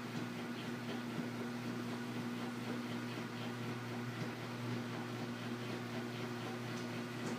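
Washing machine running through a wash cycle: a steady motor hum with faint, irregular light ticks over it.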